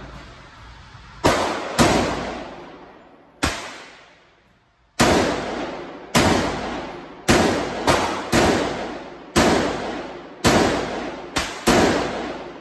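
Sig Sauer M400 AR pistol firing single semi-automatic shots, about a dozen at an uneven pace, some in quick pairs and triples. Each shot is followed by a long echoing decay from the indoor range.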